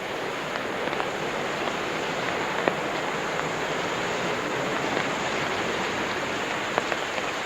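Steady rushing hiss of flowing water, even throughout, with a few faint ticks.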